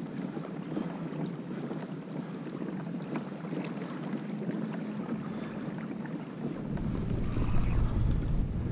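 Water lapping and slapping against a kayak hull with wind on the microphone; the wind rumble grows louder about two thirds of the way through.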